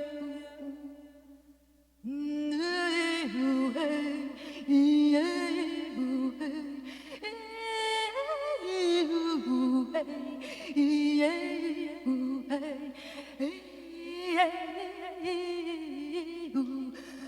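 Wordless improvised vocal music: a steady low hum held underneath while higher voices slide up and down between pitches. It starts after a brief near-silent pause about two seconds in.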